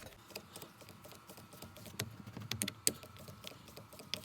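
Scattered light clicks and taps of hands handling small plastic gear-knob parts, with a sharper click about three seconds in.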